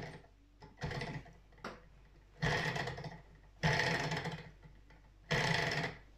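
Small twin-cylinder Stirling engine's linkage and flywheel clattering with rapid ticks in short spurts of under a second, about five times, rather than running steadily. The owner puts its poor running down to too little heat from the burners.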